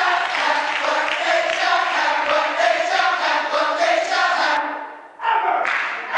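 Gospel choir singing loudly with many voices and crowd voices mixed in; the sound sags and briefly drops out about five seconds in.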